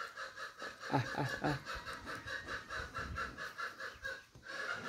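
A person's quick three-beat snicker about a second in, over a steady, fast chirping in the background that pulses about six times a second.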